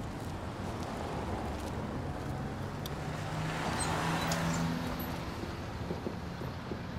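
Street traffic: a car passes by, its engine hum and tyre noise building to loudest about four seconds in and then fading.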